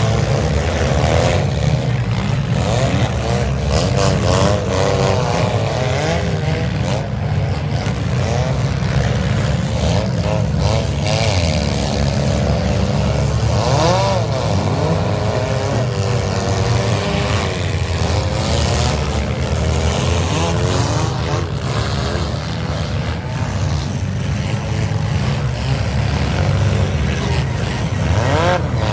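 Several compact demolition derby cars' engines running and revving hard at once, their pitches rising and falling over one another, with scattered metal crashes and bangs as the cars hit each other.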